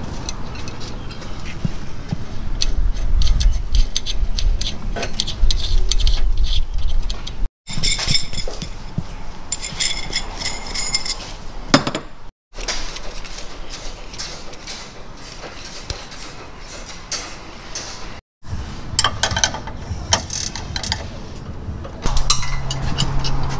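Metal hardware and hand tools clicking and clinking while sway bar arms and links are fastened: bolts and washers handled, and a wrench turned on a link bolt. The sound breaks off abruptly three times.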